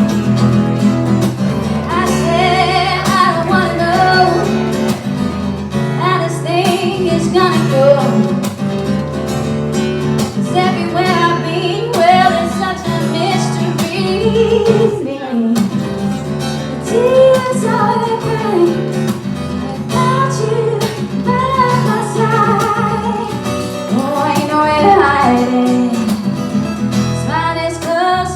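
A woman singing with acoustic guitar accompaniment.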